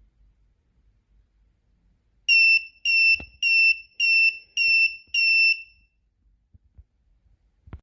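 Plug-in smoke and carbon monoxide detector's alarm sounding six short, high-pitched electronic beeps, a little under two a second. A sharp click comes near the end.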